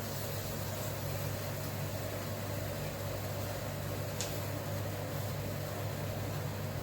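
Steady low hum of a running household appliance, with a faint tick about four seconds in.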